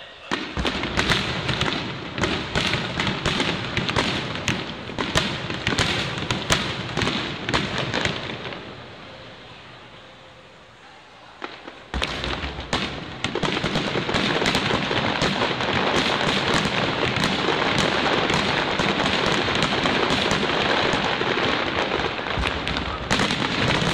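Aerial fireworks bursting and crackling in rapid succession. They die down about eight seconds in; a sharp bang a few seconds later sets off a dense, continuous crackling barrage.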